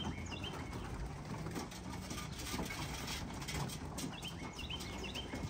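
Young racing pigeons cooing softly in the loft, with a few short high chirps near the start and near the end.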